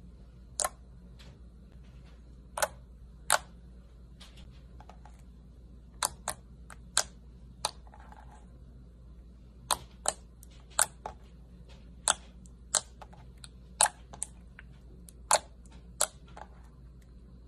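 A series of sharp, short clicks or pops at irregular spacing, roughly one a second, over a low steady hum.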